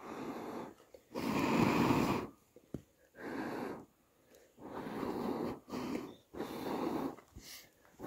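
A person blowing hard on a small campfire to fan the embers and bring a can of water to the boil: about six long, rushing breaths blown out, with short pauses to breathe in between, the longest and loudest about a second in.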